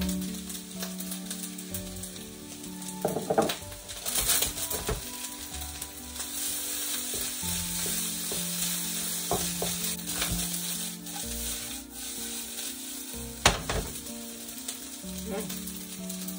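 Fried rice sizzling steadily in a hot wok while a spatula stirs and scrapes it, with a few sharp knocks of the spatula against the pan, the loudest about three-quarters of the way through.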